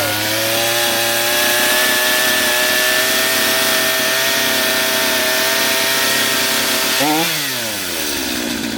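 Gas chainsaw engine running at high speed just after being started, its pitch creeping up slightly. About seven seconds in, the revs drop quickly and it settles to a lower, quieter idle.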